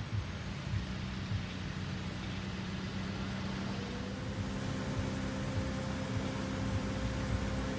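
Steady engine and road noise inside a moving vehicle, a low rumble with a hum, and a faint higher tone joining about four seconds in.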